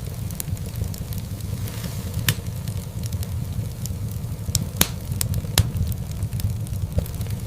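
Wood fire burning in a fireplace: a steady low rumble of flames with scattered crackles and pops, the sharpest snaps about two, five and five and a half seconds in.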